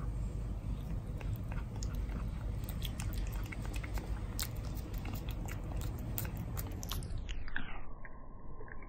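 Calico cat licking a lickable paste treat from a squeeze tube held to its mouth: a run of small, wet, sharp licking clicks and smacks close to the microphone. About seven seconds in the sound turns dull and muffled.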